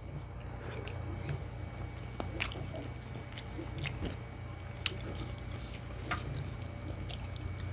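Close-up eating sounds: wet chewing, lip smacks and small sharp clicks as two people eat balbakwa stew and rice with their hands, over a steady low hum.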